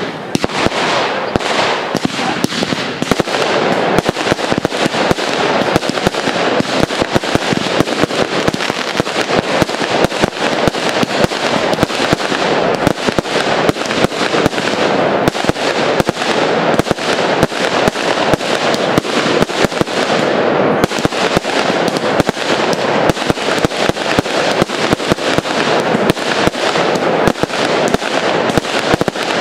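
Fireworks display: a continuous barrage of shell bursts and crackling reports, many bangs a second with no pause.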